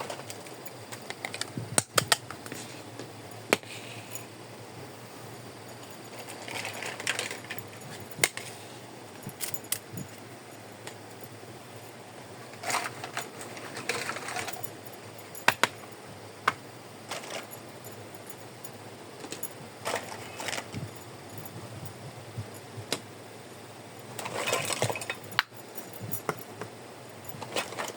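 Miniature plastic toy kitchen pieces being handled: scattered sharp clicks and taps, with a few short stretches of rustling.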